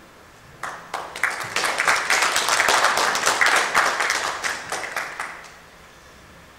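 Audience applauding. It starts with a few separate claps, builds to full applause and dies away about a second before the end.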